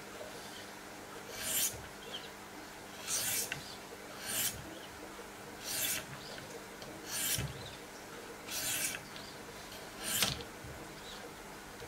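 Diamond sharpening stones of a Wicked Edge guided sharpener drawn along the edge of an M390 steel knife blade: seven short rasping strokes, about one every second and a half, alternating sides of the blade.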